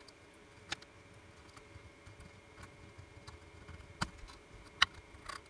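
A handful of light, scattered clicks and taps, the loudest near the end, from a soldering iron tip and wire leads being worked against a circuit board while the power supply leads are unsoldered.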